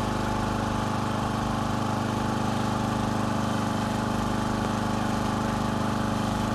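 An engine running steadily at one constant speed, a dense unchanging hum.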